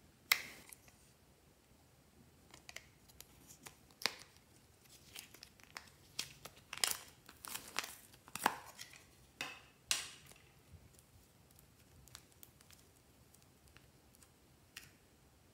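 Hard plastic clicks from a lollipop-shaped toy case being handled and opened, then sticky crackling and tearing as green slime is peeled out of it and squeezed by hand. The sharpest click comes just after the start, and the peeling is densest in the middle.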